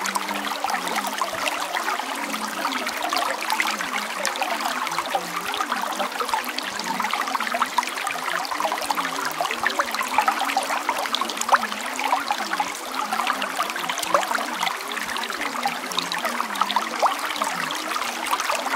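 Steady recording of running water, a trickling, babbling stream, used as the masking track for subliminal affirmations that are not heard as speech.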